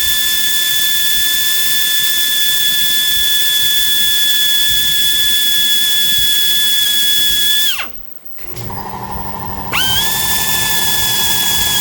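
Electric drill with a number 40 bit boring a pilot hole into a broken steel exhaust manifold stud, the motor giving a steady high whine. It winds down and stops about 8 seconds in, then starts again near 10 seconds and runs steady.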